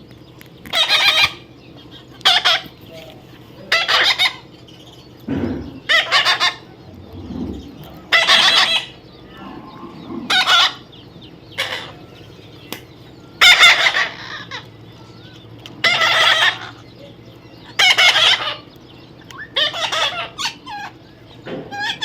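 A baby parrot calling over and over: about a dozen short, harsh squawks, each about half a second long, one every second or two.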